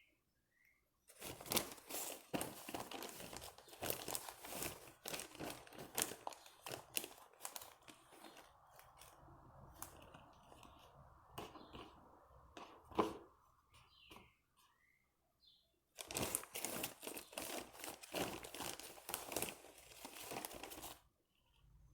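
Slime being squeezed and worked by hand, giving a dense run of wet crackling and crinkling. It stops abruptly about two thirds of the way in and starts again for a few seconds near the end.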